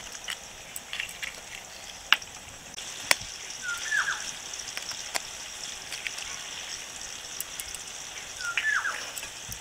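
Eggshells tapped sharply with a knife blade and cracked open into a bowl, a few crisp clicks, over a steady sizzle of potatoes frying in hot oil.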